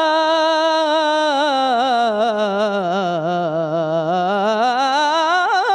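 A man singing an Islamic ibtihal (devotional supplication) unaccompanied into a microphone: one long, unbroken melismatic phrase. The pitch slides down about an octave to a low point midway, then climbs back up with quick ornamental turns near the end.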